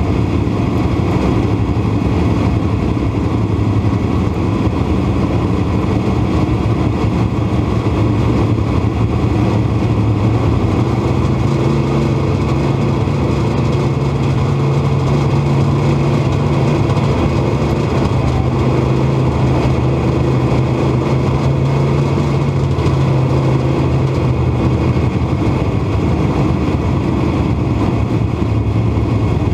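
Dirt modified race car's V8 engine heard from inside the cockpit, running steadily at low speed with the other cars' engines around it. Its pitch lifts slightly about ten seconds in and settles back near the end.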